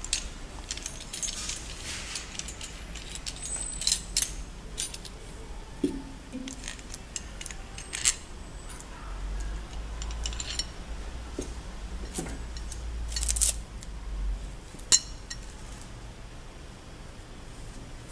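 Scattered metallic clicks and clinks as a roll of laminating film is slid onto the metal shaft of a hot laminating machine's film holder and the shaft and its end knob are handled into place, over a low hum.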